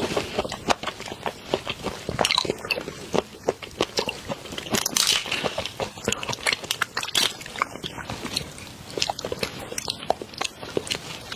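Close-miked eating sounds: chewing, and the crackle of large prawns' shells being cracked and peeled apart by hand, a dense run of small clicks and crunches.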